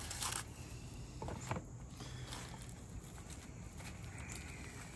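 Faint, soft wet handling sounds of gloved hands pulling apart a smoked pork butt on an aluminium sheet pan, with a short scuffing noise at the start.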